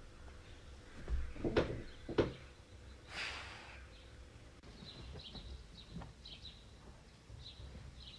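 A cat dragging a sheet and thin blanket in its teeth across a bed: a couple of soft thumps and a rustle of cloth. Small birds chirp repeatedly from about halfway through.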